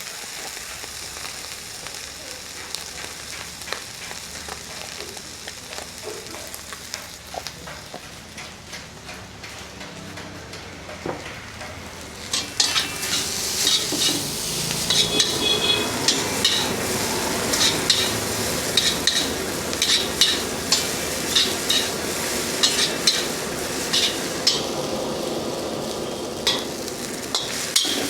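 Food frying in a street-food wok with a steady sizzle. About halfway through it gets louder, and a metal ladle scrapes and clanks against the wok over and over as the food is stirred and tossed.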